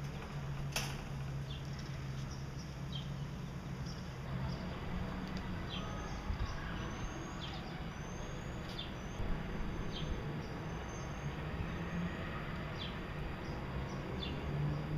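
Small cage birds, Gouldian finches, chirping: short high calls every second or so, with a run of brief rising whistles in the middle. A sharp click sounds about a second in, over a low steady hum.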